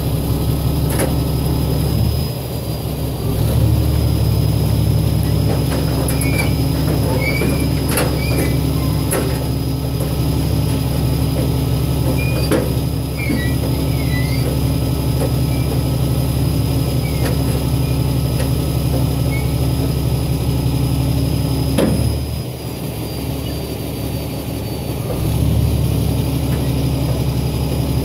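Kenworth T800 diesel engine running steadily as the truck tilts its bed and creeps forward to drop a lumber load, with short squeaks and a few sharp knocks from the sliding load and bed. The engine note dips twice, briefly early on and for a few seconds later.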